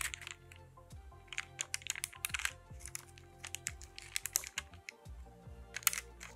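Metal spatula pressing and scraping clay gel and gold flakes against cooking-sheet paper while mixing them, making irregular light clicks and scrapes. Background music plays steadily underneath.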